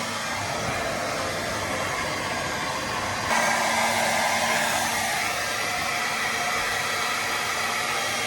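Hair dryer running steadily, blowing air for the TV repair trick. About three seconds in it gets suddenly louder, then eases off a little.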